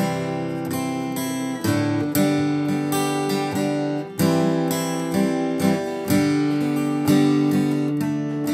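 Acoustic guitar strummed in a steady rhythm, with the held chords changing every second or two.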